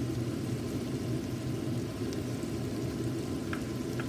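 Tomato sauce simmering in a frying pan, a steady low rumble and hiss, with a couple of small pops near the end.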